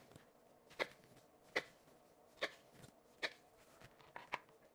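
Chef's knife slicing a jalapeño into strips, the blade knocking on the cutting board in steady strokes a little more than once a second.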